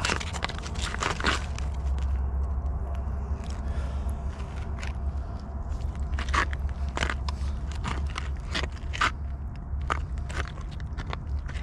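Irregular crunching and scraping close to the microphone, from boots and handling on the snowy ice as a crappie is pulled up through the ice hole, over a steady low rumble.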